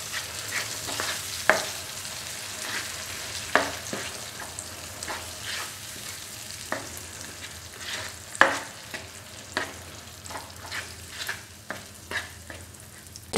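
Spatula stirring yogurt into frying onion-tomato masala in a nonstick frying pan: a steady low sizzle with irregular scrapes and taps of the spatula against the pan.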